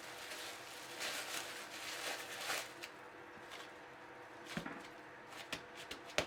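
Faint rustling, then a few light knocks, as the chilled pastry dough wrapped in cling film is handled on the kitchen counter.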